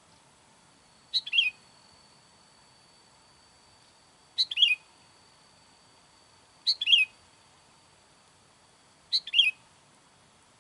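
Sooty-headed bulbul (kutilang) call, a short bubbly phrase repeated four times at even intervals about two and a half seconds apart, each phrase alike: a lure call for attracting wild bulbuls.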